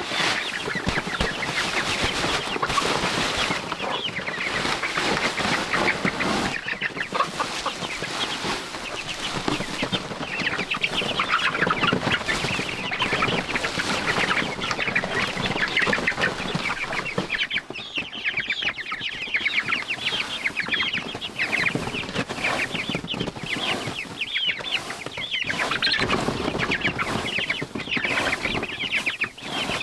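A flock of chickens clucking, with many short calls overlapping.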